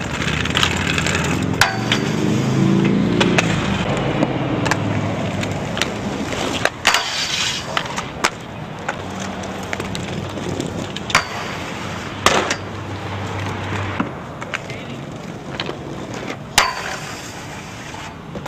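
Inline skate wheels rolling over rough pavement, with several sharp clacks of skates striking the ground or the metal rail.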